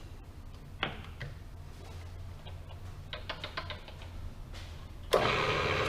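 Clicks and light ticks from the Bridgeport Series II Special mill head as it is shifted into back gear, over a low steady hum. About five seconds in the mill's spindle motor starts and runs with a loud, steady whir.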